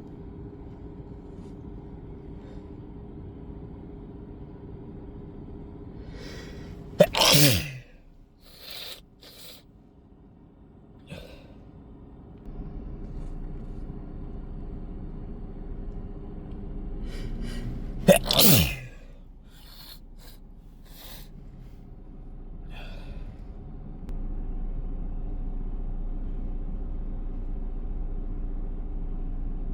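Two hard, wet sneezes about eleven seconds apart. Each comes after a short gasping inhale and is followed by a few sniffs, over a steady low hum inside a car.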